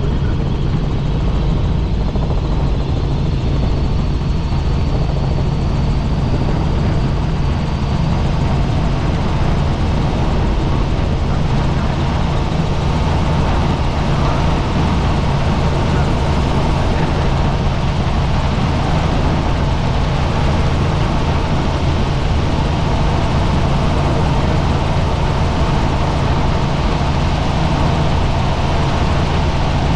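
Helicopter in flight: a steady, unbroken drone with a strong low hum.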